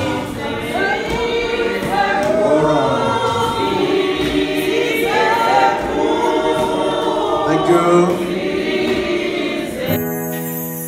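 A group of voices singing a hymn together without accompaniment. About ten seconds in it cuts off abruptly to piano music.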